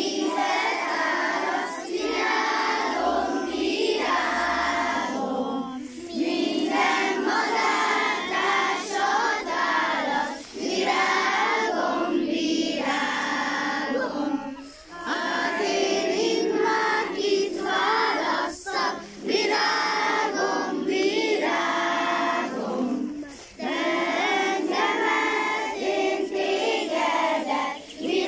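A group of young children singing a song together, in phrases of a few seconds with short breaks for breath between them.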